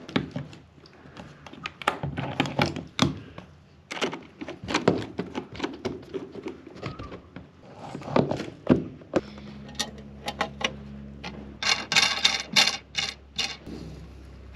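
A run of irregular knocks, taps and thunks of hands-on work. A steady low hum comes in about nine seconds in, and a short burst of sharp rattling follows around twelve seconds.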